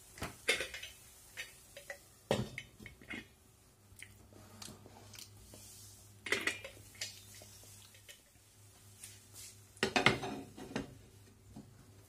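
Cookware clattering: a stainless steel pan lid and a china plate knocked against a frying pan as they are handled, in several separate clinks and clanks, the loudest near the end.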